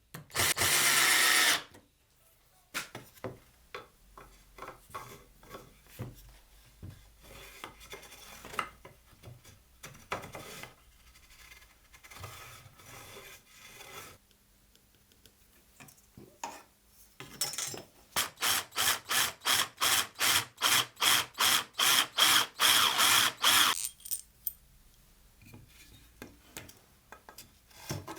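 A power drill runs for about a second. Then come scattered knocks and clicks of wood and tools being handled. Later a run of rapid, evenly spaced rasping strokes, about three a second, lasts roughly six seconds.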